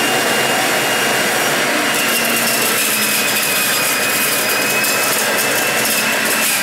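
Breville multi-speed centrifugal juicer running with a steady motor whine and a high tone. From about two seconds in there is a rasping crackle as pineapple and ginger pieces are pressed down the feed chute onto the spinning cutting disc and shredded.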